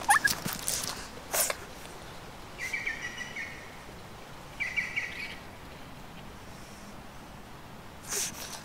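A pug scuffling and hopping on grass and dry fallen leaves, with a brief whine right at the start, the loudest moment. A bird calls twice in short chirping bursts, about three and five seconds in.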